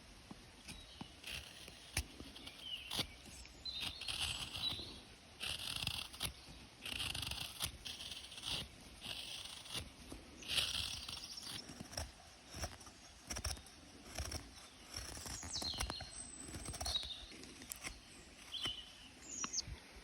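Knife shaving wood in a run of irregular short scraping strokes, with sharp clicks between them.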